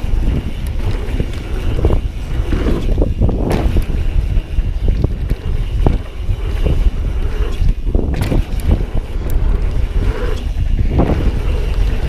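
Mountain bike descending a downhill trail at speed: wind buffeting the action camera's microphone over a steady low rumble of tyres on dirt, with frequent sharp clacks and rattles from the bike over bumps.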